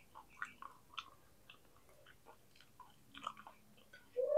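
Close-miked mouth sounds of a person chewing fried tempeh: faint, irregular wet clicks and small crunches a few times a second. A louder sound begins just before the end.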